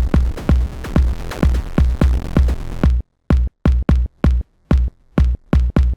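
Electronic dance track with a pounding kick drum and noisy synth hits; about halfway through the backing drops away, leaving only stuttering hits separated by short silences.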